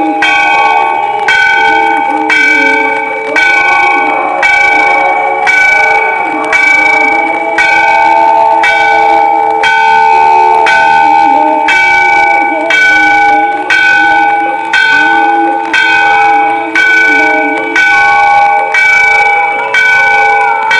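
Temple bells ringing for the evening aarti, struck about once a second, each strike followed by a ring of several tones that carries into the next.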